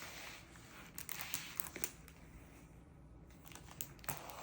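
Plastic packaging crinkling and rustling as it is handled, in a few short spells with some sharp clicks between them.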